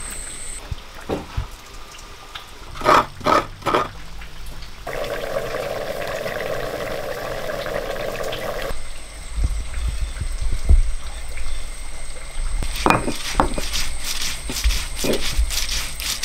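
Cooking at a wood-fired stove: the fire crackling under a clay pot, with a few knocks early on and a steady rushing noise for a few seconds in the middle.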